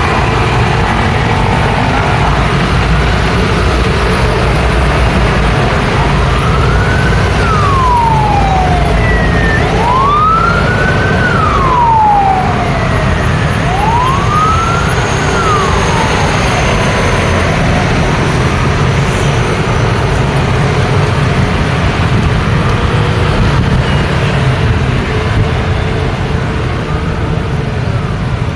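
Busy road traffic running steadily, with a siren wailing in slow rising-and-falling sweeps. The siren is clearest from about six seconds in to about seventeen seconds, and sounds once more faintly near the end.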